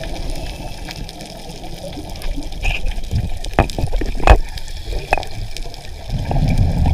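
Muffled underwater noise heard through a camera housing: a steady watery rush with a few sharp clicks and knocks in the middle, swelling to a louder low rumble near the end.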